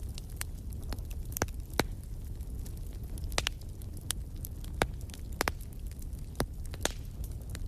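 Wood fire in a fireplace crackling: irregular sharp pops and snaps over a steady low rumble of the burning logs.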